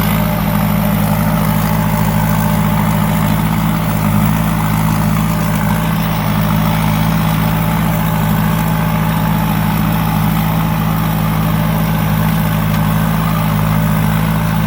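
Thai Seng Super Jiw combine harvester's 165-horsepower turbocharged four-cylinder diesel engine running steadily at an even speed.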